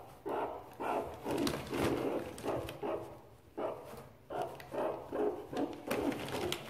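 Meerkats giving a steady series of short barking calls, about two a second, with a brief pause near the middle.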